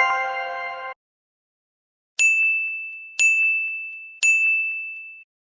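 Edited-in chime sound effects: a bright multi-note chime that cuts off abruptly about a second in, then three identical high dings a second apart, each ringing out and fading.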